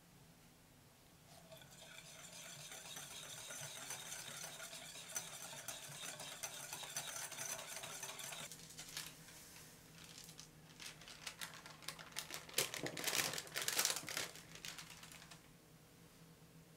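Wire balloon whisk beating egg yolks and cream in a glass bowl: a fast, even clatter of the wires against the glass, then slower, irregular clinks and taps, the loudest a few seconds before the end.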